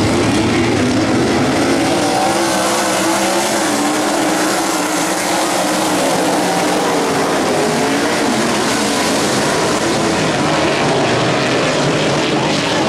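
Racing car engines running at speed, their pitch rising and falling with the throttle over a steady rush of noise.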